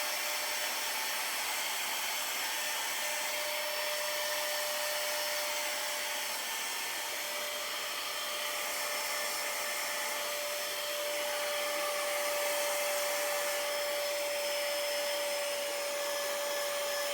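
Small handheld mini blower-vacuum running steadily with a constant high whine, blowing and sucking dust off a laptop's cooling-fan and heat-sink parts.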